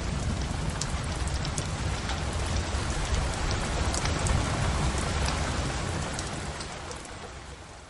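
Steady rain with scattered drop ticks over a low rumble, fading out near the end.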